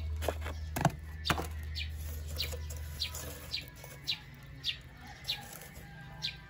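Lumps of charcoal knocking into a metal charcoal stove a few times as they are tipped in and placed by hand. A bird chirps over and over, about every half second, with short falling notes.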